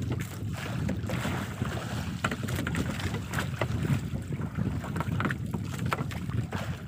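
Wind rumbling on the microphone over open sea, with water washing against a small outrigger boat and scattered light knocks and ticks.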